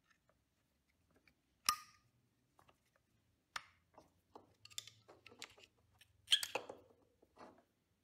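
Scattered faint clicks and small scrapes of a flat screwdriver and a new brake pad's metal backing against a Honda Africa Twin front brake caliper as the pad is worked into its slots. One sharp click comes a little under two seconds in, and the loudest cluster a little past six seconds.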